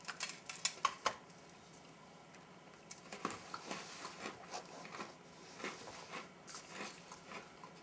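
An MRE Creamsicle cookie broken apart by hand, with a few sharp cracks in the first second, then a bite of it chewed with small irregular crunches.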